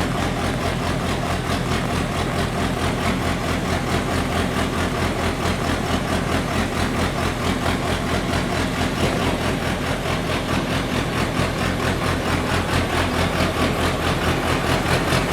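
A crawler drilling rig's engine running steadily with a low, even throb while the rig's tower is being lowered flat.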